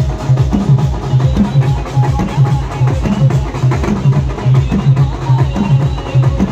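A Marathi banjo band playing loudly: large hand-carried drums beat a steady fast rhythm, with a melody line from the electric banjo on top.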